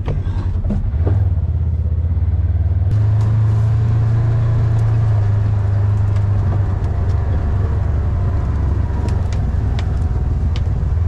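Polaris Ranger side-by-side's engine running under way, a steady low drone that picks up about a second in and again around three seconds in, with a few sharp clicks over it.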